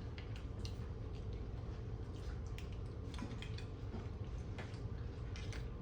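Close-up wet eating sounds from mussels and shrimp: irregular small clicks, smacks and squishes of chewing and of shellfish being handled, over a steady low hum.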